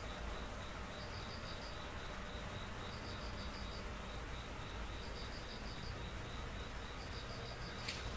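A chirping insect: short high trills of about five pulses, repeating about every two seconds over a steady hiss. A single sharp click comes near the end.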